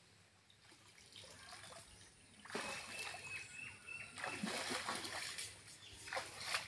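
Water splashing and dripping as a bamboo fish trap is lifted out of a shallow muddy channel and someone wades out through the water. It comes in uneven bursts starting about two and a half seconds in, with a last splash near the end.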